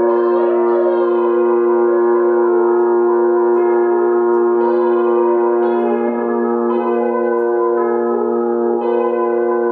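Ambient drone music. Two low notes are held steadily throughout, with a stack of higher sustained tones above them. Fresh higher notes come in about once a second in the second half.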